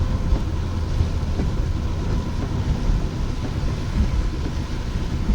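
Car driving in heavy rain, heard from inside the cabin: a steady low rumble of road and engine under an even hiss of rain and water on the windshield.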